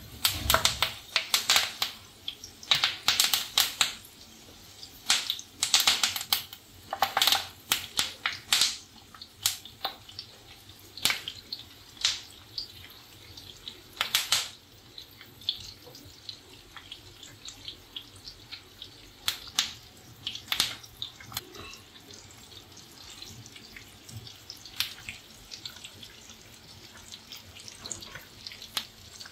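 Curry leaf sprigs spluttering in hot frying oil: dense sharp crackles and pops for the first several seconds, then thinning out to scattered pops.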